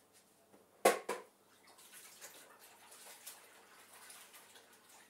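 Two sharp knocks about a second in, then soft splashing and dripping of water as a cleaning cloth is worked in a container of cleaning water.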